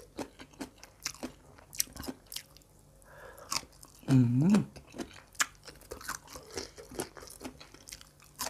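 Close-miked crunchy chewing of raw vegetables and papaya salad: a steady run of crisp crunches. A short hummed voice sound, dipping and rising in pitch, comes about four seconds in and is the loudest moment.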